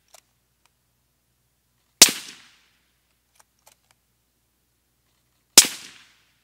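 Two suppressed shots from a bolt-action .308 Winchester rifle fired through a Rugged Suppressors Surge 762 with its Adapt Module fitted, about three and a half seconds apart. Each is a sharp crack that dies away within about half a second.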